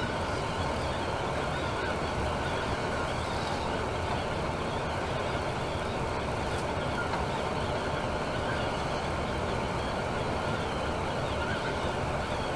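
Temsa Maraton coach travelling at steady speed on a motorway: an even, unchanging noise of engine and tyres on the road.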